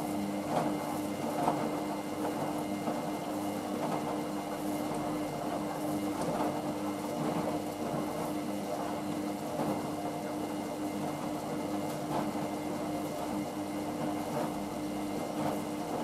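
Hoover VisionDynamic front-loading washing machine tumbling a wet load of laundry in water: a steady motor hum with the swish and slosh of water and clothes in the turning drum.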